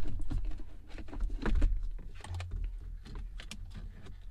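Irregular plastic clicks and rustling as gloved hands work the wooden gear-lever trim panel of a Mercedes W203 centre console loose from its clips. The sharpest click comes about one and a half seconds in.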